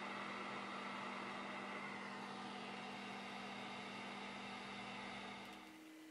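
Hot air rework station at 380 °C blowing a steady hiss with a motor hum, heating a phone's CPU off the board; about five and a half seconds in it stops, leaving only a faint hum.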